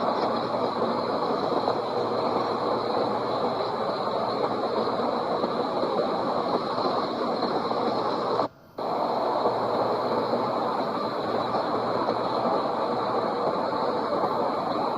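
Steady, dense crackle and rumble of a fireworks display, with no single bang standing out. The sound cuts out briefly about eight and a half seconds in.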